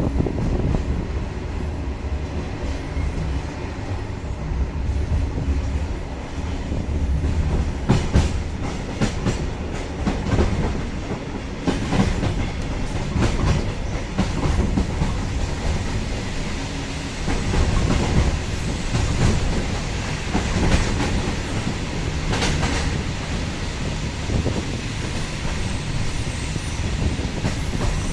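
InterCity train running at low speed, with a steady low rumble and irregular clacks as its wheels pass over the track.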